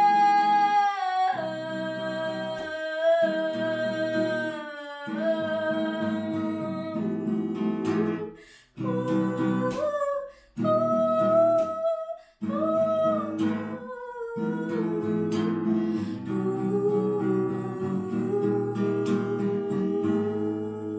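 A voice singing a slow, held melody over an acoustic guitar, with a few brief pauses between phrases in the middle.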